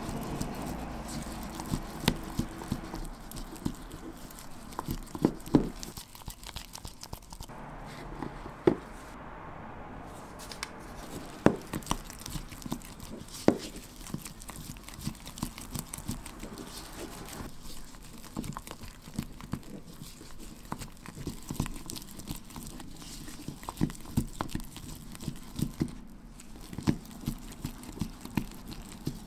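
A spatula working bean paste around a bowl while mixing in colouring: wet scraping and squishing, with many irregular sharp taps and clicks of the spatula against the bowl.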